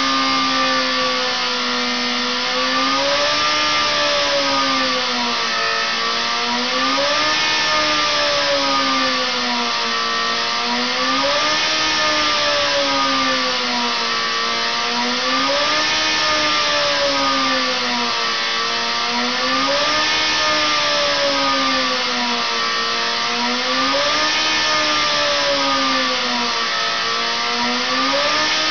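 Engine running on a dynamometer test bed, its speed rising and falling smoothly in a regular cycle about every four seconds.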